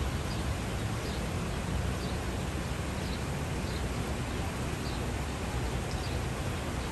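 Steady rushing of fast-flowing floodwater over a road, an even noise with no break.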